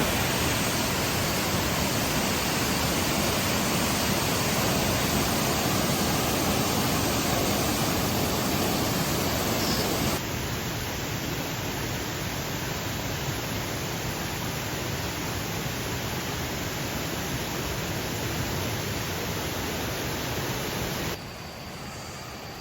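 Steady rushing of a waterfall, an even roar of falling water. It steps down in level about ten seconds in and again near the end.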